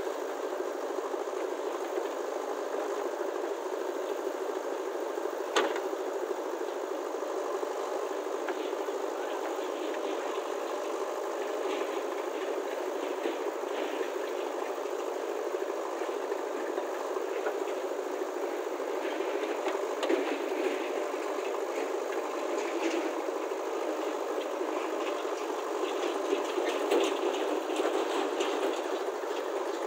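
JCB backhoe loader's diesel engine running steadily as it digs earth and loads it into a tractor trolley. A sharp knock comes about five and a half seconds in, and bursts of rattling and clatter come later on.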